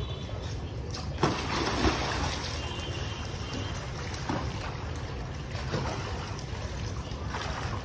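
Pool water splashing and sloshing as a child swims, with a couple of louder splashes in the first two seconds over a steady rushing hiss and low rumble.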